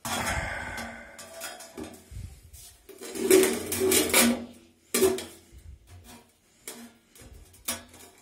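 A long metal straightedge being laid across a concrete floor and onto a tile, clattering and scraping, loudest in the middle, with a few separate sharp knocks after.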